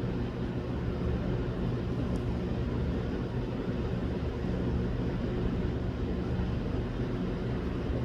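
Steady mechanical hum with an even hiss over it, holding the same level throughout.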